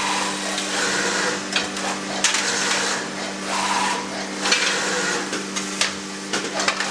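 Filotec CNC scoring machine's panel-centering station at work, moving a printed circuit board panel into position: a steady machine hum, with repeated bursts of hiss about once a second and several sharp clacks.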